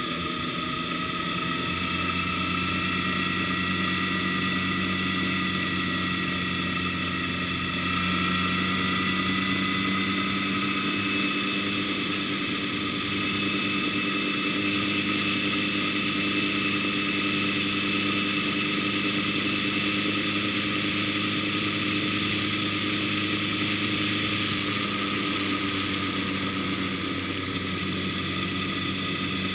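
Vehicle engine running at a steady cruising speed, its pitch rising slightly about eight seconds in. About halfway through, a loud high hiss joins it for about twelve seconds and then cuts off suddenly.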